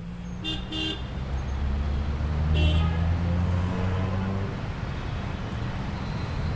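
Street traffic: vehicle engines running with short car-horn toots, two quick ones near the start and another about two and a half seconds in.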